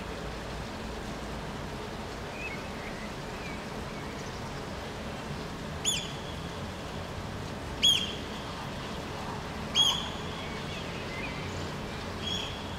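Eurasian oystercatcher giving shrill piping 'kleep' calls as it takes flight, alarmed by approaching people. There are three loud calls about two seconds apart, with fainter calls before and after, over a steady hiss of rain.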